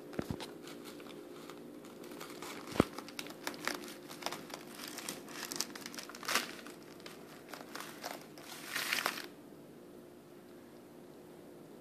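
Plastic bread bag crinkling and rustling as it is handled, an irregular run of crackles with a louder burst that stops about nine seconds in.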